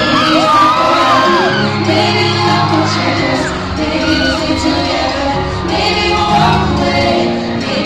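Live pop song with singers on microphones over a backing track, played through a large hall's PA. Fans shriek and cheer over it in the first second or so.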